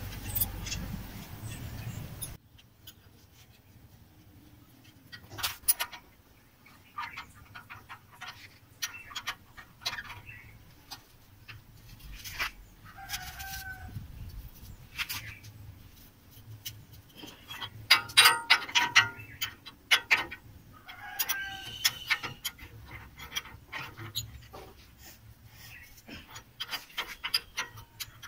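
Scattered metal clicks and clinks as a power tiller's steel cage wheel is handled and pinned onto its axle hub. A few short animal calls sound in the background.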